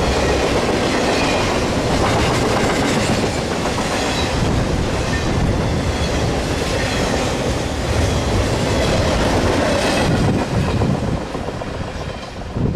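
Intermodal freight train's loaded container cars rolling past close by: a steady heavy rumble of steel wheels with clickety-clack over the rail joints. The sound drops away about ten and a half seconds in as the end of the train passes and moves off.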